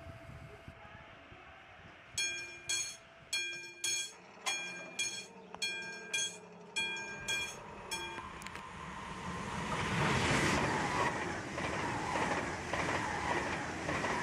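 A level-crossing warning bell strikes about twice a second for several seconds. Then a train passes at speed, its rushing noise building and staying loud.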